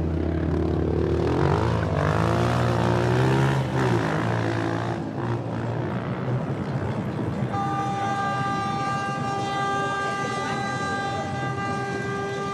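Vehicle engines running, their pitch rising and falling over the first few seconds, with no more than a steady hum after that. About halfway through, a steady high-pitched tone with several overtones starts and holds to the end.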